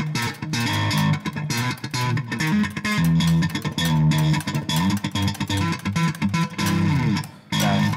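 Electric guitar played with the thumping technique: a fast, percussive riff of low notes, each thumb strike followed by finger plucks in quick groups.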